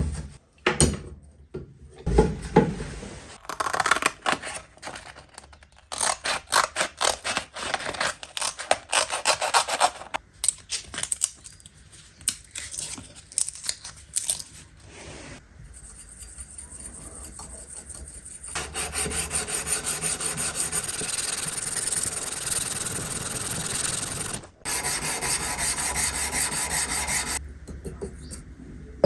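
Abrasive hand work on a cleaver: quick back-and-forth rubbing strokes, like filing or sanding. In the second half it turns into a steadier continuous scraping, with a couple of abrupt breaks.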